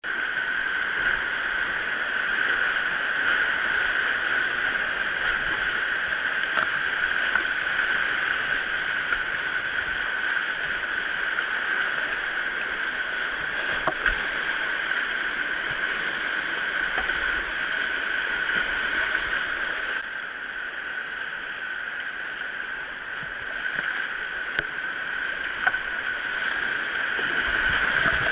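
Steady rushing of a mountain valley stream, with a few faint clicks; it turns a little quieter about two-thirds of the way through.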